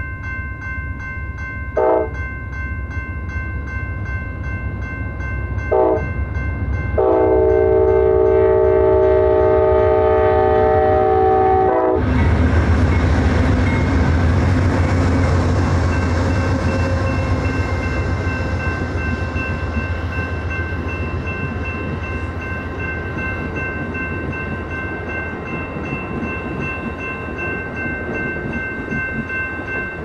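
Amtrak passenger train's diesel locomotive air horn sounding two short blasts and then a long one, which cuts off abruptly. The long blast is followed by the steady rumble of the moving train, slowly fading.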